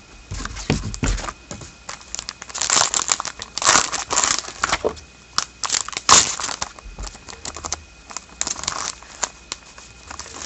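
Foil wrapper of a hockey card pack crinkling and tearing as it is opened and handled, in irregular bursts, loudest around three to four seconds in and again about six seconds in.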